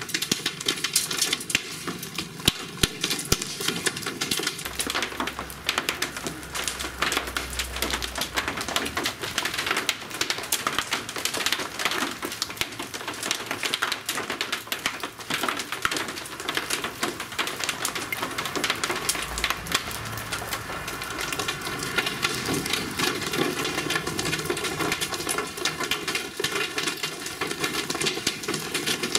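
A rain shower of large raindrops with an occasional hailstone, pattering and clicking densely and steadily on hard surfaces. A brief low rumble comes in twice, about five seconds in and again near twenty seconds.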